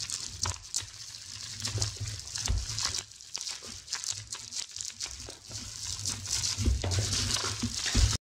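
Plastic bubble wrap crinkling and crackling as it is cut with scissors and pulled at by hand, with low bumps of handling under it. The sound cuts off suddenly near the end.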